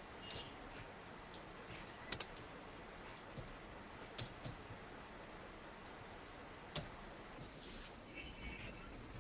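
Typing on a computer keyboard: irregular key clicks, a few of them sharper and louder than the rest, with a short soft hiss near the end.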